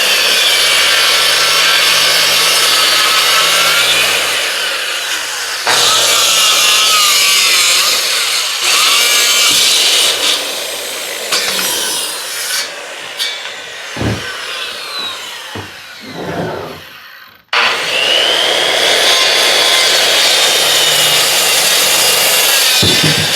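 Power saw cutting rough-cut lumber, its motor whine dipping and wavering under load through several cuts, with abrupt breaks where the sound stops and starts again.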